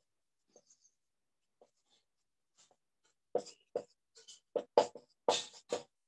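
Writing strokes: a few faint scratches, then about three seconds in a busy run of quick, louder strokes as words are written out.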